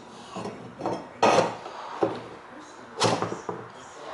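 Knocks and clunks of metal drill press parts being handled and fitted together during assembly, with three louder knocks about a second apart, the first the loudest.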